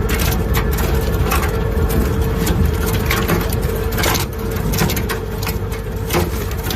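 Weima WL 4 single-shaft wood shredder running under load, its knifed rotor chewing through wood waste. A steady low machine drone and hum is broken by frequent irregular sharp cracks of wood snapping.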